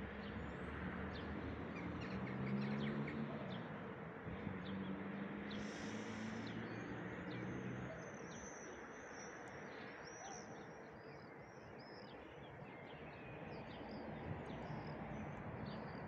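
Birds chirping and calling high in pitch over a steady background hiss of the town, thickest from about six seconds in. A low engine hum runs underneath through the first half.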